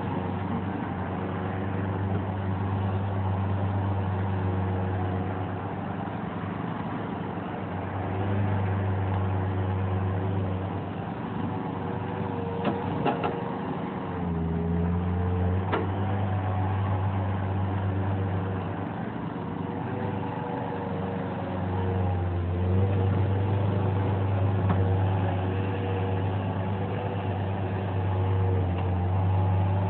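Bobcat 763 skid steer's diesel engine running under load during operation, its pitch and loudness rising and falling, with a dip around 14 seconds in. A few sharp knocks sound around 13 and 16 seconds in.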